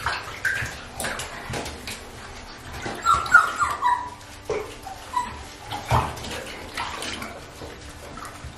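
Young puppies giving short, high whimpers and whines while being shampooed in a bathtub, with a cluster of falling whines about three to four seconds in. Under them are the wet sounds of hands scrubbing soapy fur and water splashing in the tub.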